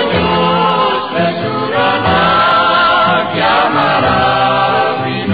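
Music of several voices singing together, held wavering notes over steady low notes.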